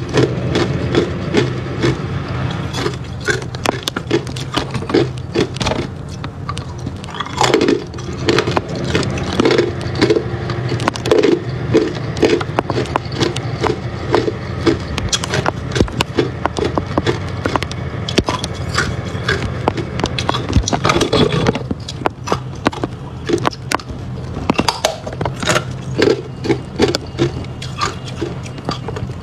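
Clear hard ice being bitten and chewed: a rapid, irregular run of sharp cracking crunches, over a steady low hum.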